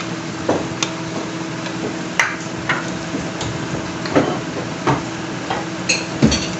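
Frying pan of meat pieces and a freshly added tomato, onion and garlic purée sizzling while a plastic spatula stirs it, scraping and knocking against the pan about once a second. A steady hum runs underneath.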